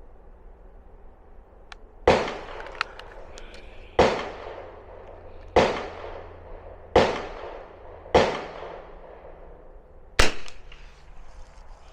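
Six rifle shots, irregularly spaced one to two seconds apart, each followed by a short echoing tail.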